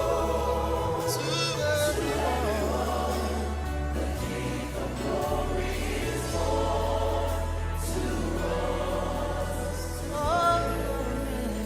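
Gospel choir singing over an instrumental backing with a sustained bass line, a voice sliding up in pitch near the end.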